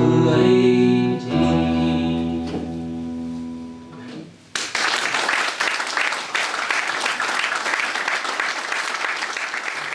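Acoustic guitar's closing chords ringing and fading out, with one more strum a little over a second in. Then, about four and a half seconds in, the audience suddenly starts applauding and keeps clapping.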